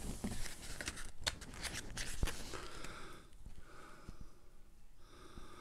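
Soft paper rustling with a few light ticks as the pages of a small booklet are handled and leafed through.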